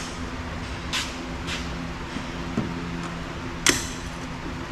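A few short metal clinks and knocks as small rusty parts are handled in an old steel toolbox and set aside, the loudest about three-quarters of the way through, over a steady low hum.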